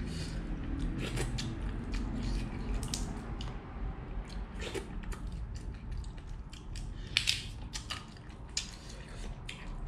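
Cooked crab shell cracking and crackling as it is broken apart and picked by hand, with small irregular clicks throughout and one sharper crack about seven seconds in.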